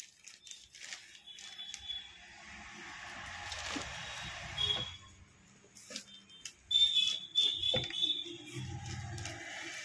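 Slabs of Dalda shortening being handled and set on a digital kitchen scale: rustling and a few soft knocks. Short high-pitched tones come and go over it, loudest about seven to eight seconds in.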